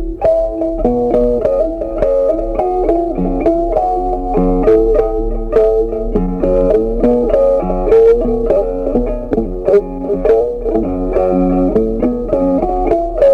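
Background music: a plucked guitar tune with a bass line, notes changing in a steady rhythm.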